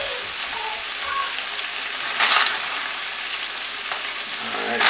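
Chopped vegetables and flaked saltfish sizzling steadily as they fry in hot oil in a non-stick frying pan, briefly louder about two seconds in.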